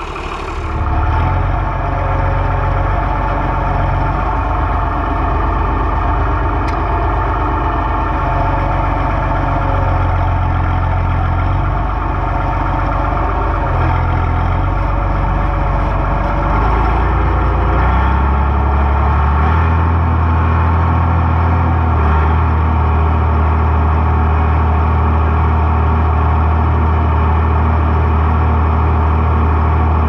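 White 8900 combine running steadily in the wheat, with a low engine drone that shifts and settles to a steadier, deeper hum about 18 seconds in.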